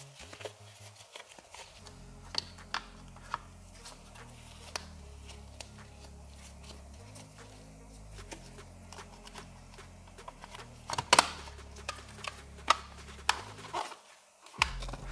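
Plastic clicks and knocks of a car light-module (FRM) housing being handled and its cover pressed back on, with a cluster of sharper snaps about eleven seconds in, over a faint low hum.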